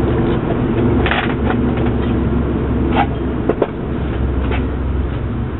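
Steady low hum of air-powered tire equipment running, with a few short knocks and clanks while the bead of a split-ring truck tire is being broken loose from its rim.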